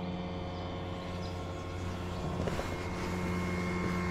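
Steady motor hum with an even low drone and several steady higher tones; about two and a half seconds in, a higher whine joins in and holds.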